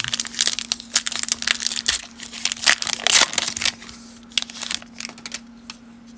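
Wrapper of a Topps baseball card pack crinkling as it is torn open, dense and loud for about the first three seconds, then thinning to a few lighter rustles as the cards are slid out.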